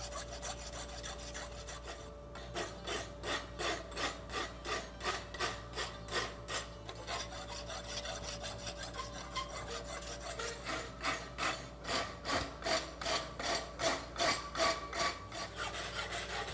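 Farrier's rasp drawn back and forth across the edges of a forged steel horseshoe clamped in a vise, in rhythmic rasping strokes of about two a second. The shoe is being filed up to clean and finish its edges.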